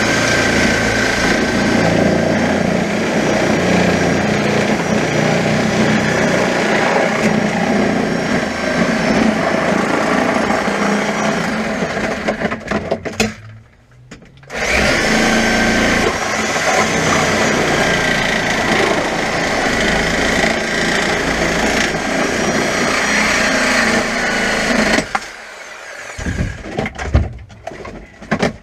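Reciprocating saw with a flexible metal-cutting blade running as it cuts through a car's dashboard. It stops for about a second and a half near the middle, then runs again for about ten seconds. Near the end it gives way to quieter, irregular knocking.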